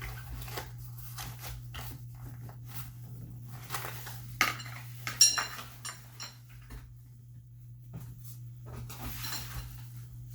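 Playpen and bassinet parts clicking and clattering as they are handled and fitted together, with a few sharper ringing clinks about four to five seconds in. A steady low hum runs underneath.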